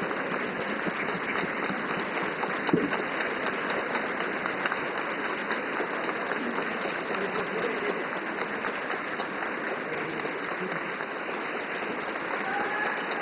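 Large audience applauding steadily, with faint voices in the crowd.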